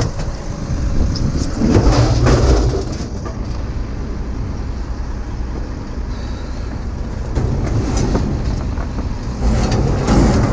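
A motor vehicle engine running steadily, with two louder rushing swells, about two seconds in and again near the end.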